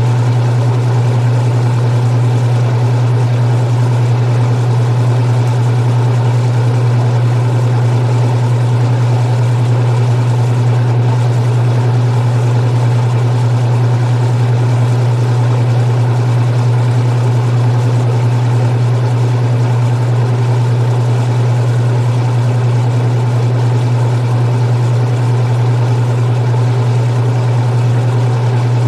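Restored 1978 Maytag LA806 washing machine running, with a loud, steady low hum throughout.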